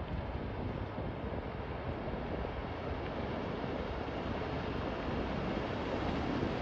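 High-speed passenger catamaran running past at speed: a steady rushing of its engines and wake, mixed with wind on the microphone.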